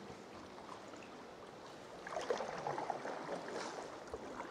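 Water splashing and lapping around a sea kayak as it is paddled, low at first and louder from about two seconds in.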